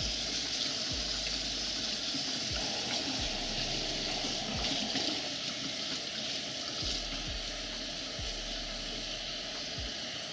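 Kitchen faucet running steadily, its stream splashing into the sink and over wet dreadlocks as they are rinsed through by hand.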